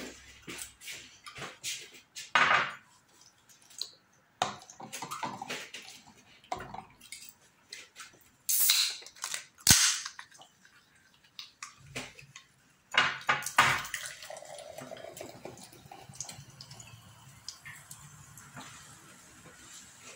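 A child slurping and chewing noodles, with a plastic utensil clicking and scraping against the bowl; a few louder slurps come several seconds apart.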